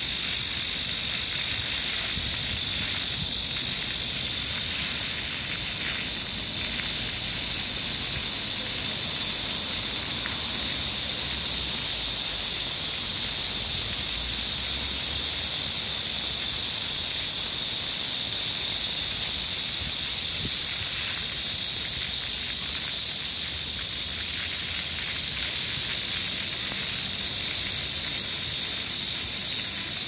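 A chorus of summer cicadas buzzing in a loud, steady, high-pitched shrill, with a rapid pulsing in the highest notes near the end. Underneath, the even splashing of jetting park fountains.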